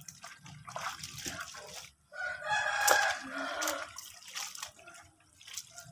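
A rooster crows once, a long call starting about two seconds in. Around it, wet clothes are splashed and worked by hand in a basin of water.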